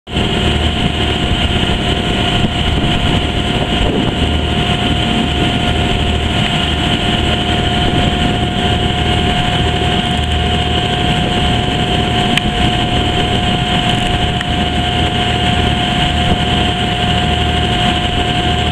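Boat engine running steadily at cruising speed, with one constant whine over an even rush of engine and water noise.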